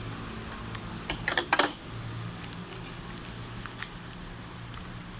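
Small toy packaging being handled and opened: sharp plastic clicks and crackles, loudest in a quick cluster a little over a second in, then scattered lighter ticks over a steady low hum.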